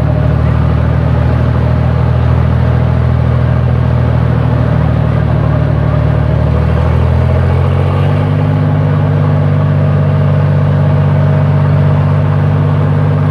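1936 Buffalo fire engine's engine running hard while driving its 1000 gpm pump, with a steady, loud note. About eight seconds in, its pitch steps up as the engine speeds up, and it holds the higher speed.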